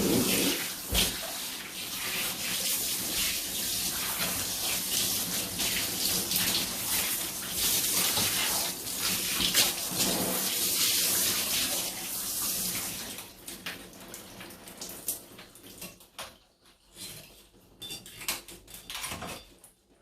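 Water running steadily from a tap or shower, fading out about thirteen seconds in, followed by scattered drips.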